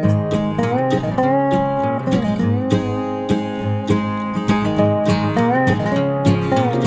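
Background music: acoustic guitar strumming with sliding notes over a steady beat.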